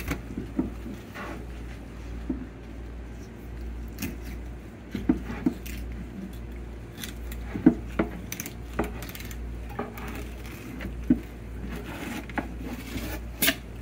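Knife cutting a Spanish mackerel on a plastic cutting board: scattered light clicks and taps of the blade and fish against the board, over a low steady hum.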